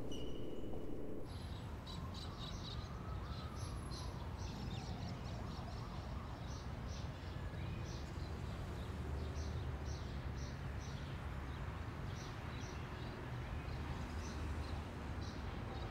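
Outdoor ambience: small birds chirping in short repeated bursts over a steady low rumble. A low hum cuts off about a second in.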